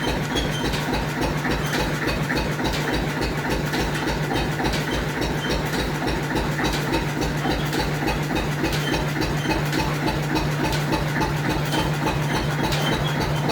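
Lister CS6 single-cylinder stationary diesel engine running steadily at a slow, even beat of several thumps a second, driving the lathe.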